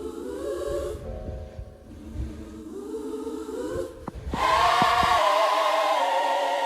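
Music: a choir singing held, wordless chords in a gospel style, with slow rising glides, swelling louder about four seconds in.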